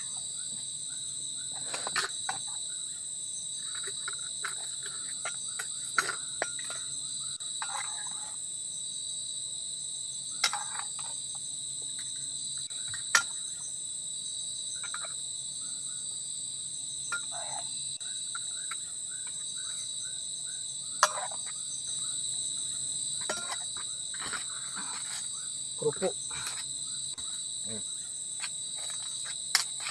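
Steady, high-pitched chorus of forest insects. Over it come scattered clicks, knocks and short rustles of people eating from plates.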